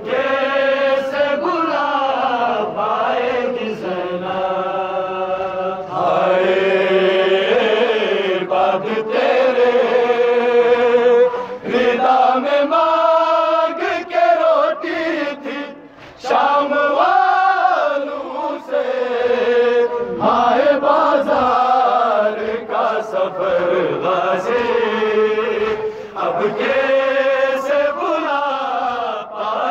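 Men's voices chanting a Balti noha, a Shia mourning lament, in long melodic phrases that rise and fall. There are short pauses about twelve and sixteen seconds in.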